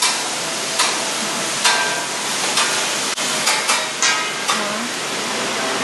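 Food sizzling steadily on a Mongolian barbecue griddle as it is stir-fried, with several short clinks and scrapes of the cooking utensils against the metal.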